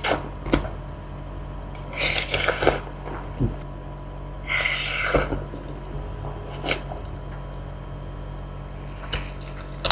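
Close-miked eating of instant noodles: two short slurps, about two and five seconds in, between wet mouth clicks and chewing.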